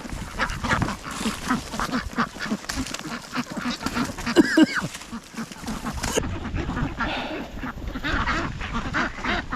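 Ducks quacking over and over in short calls.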